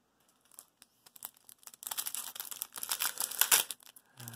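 A foil Magic: The Gathering booster pack wrapper crinkling as it is handled to be opened, starting about halfway through after a few light clicks.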